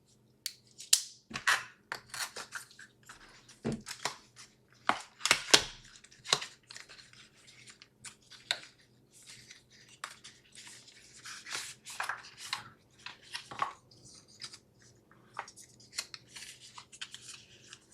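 A small product box and its packaging being opened and handled by hand: irregular rustles, scrapes and sharp clicks, with no steady rhythm.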